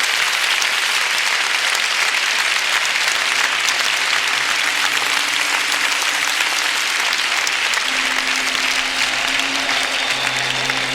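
Audience applauding steadily throughout. Quiet music comes in underneath from about a third of the way through and grows a little toward the end.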